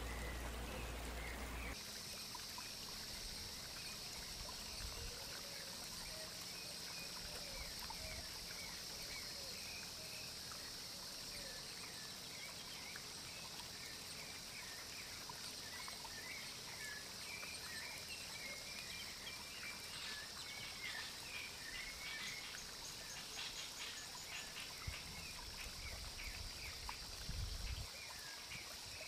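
Outdoor pond ambience: a steady hiss of trickling water with a constant high drone, and small birds chirping over and over. A few low bumps come near the end.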